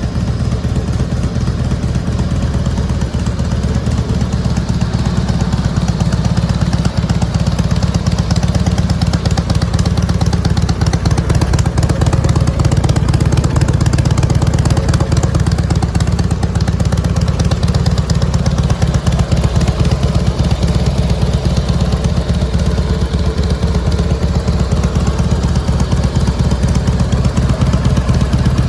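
2004 Harley-Davidson Softail Night Train's V-twin running steadily through Miller mufflers, with a low, fast, even exhaust pulse.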